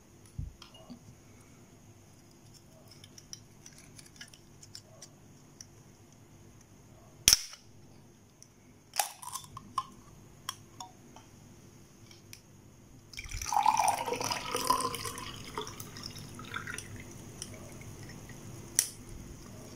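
Aluminium ring-pull drink can cracked open with a sharp pop, amid light clicks of the can and glass being handled. Later the drink is poured from the can into a glass, splashing for about four seconds, and a sharp knock comes near the end.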